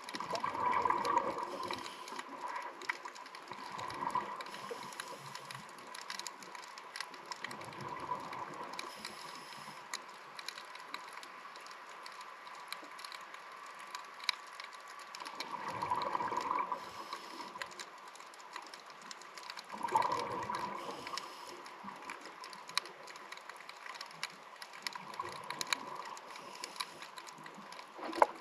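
Scuba regulator exhaust: a diver's exhaled breath bubbling out every few seconds, with longer gaps between breaths in the middle. A constant faint crackle of small clicks from the water runs underneath.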